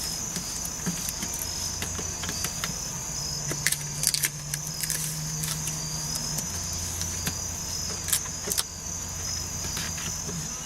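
Repaired power window motor in a 1992 Lincoln Town Car door running the glass, a low steady hum that shifts pitch about three seconds in and again past halfway. Scattered light clicks throughout.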